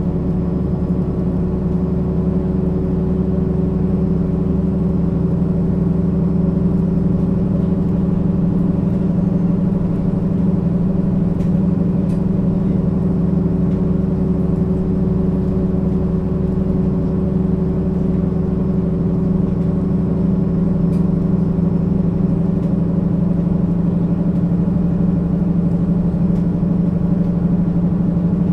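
Engine of a 2003 Mercedes-Benz O 530 G Citaro G articulated city bus idling steadily, its pitch unchanging.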